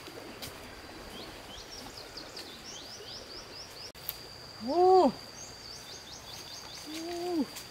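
Forest ambience: a steady high-pitched insect tone, two runs of quick bird chirps, and two short hoot-like calls that rise then fall in pitch. The first call, about five seconds in, is the loudest sound; the second comes near the end.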